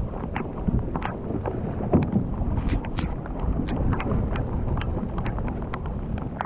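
Storm wind buffeting the microphone in gusts, with many irregular sharp taps of water on the kayak scattered throughout.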